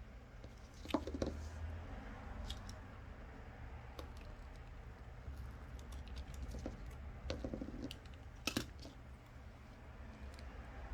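Scattered small clicks and crinkles of hands laying double-sided adhesive strips on a smartwatch frame, over a steady low hum. There are louder clicks about a second in and again near the end.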